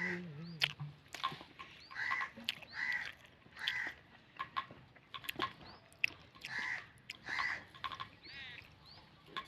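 A bird calling repeatedly with short harsh calls, mixed with sharp taps of its beak pecking at its reflection in a mirror.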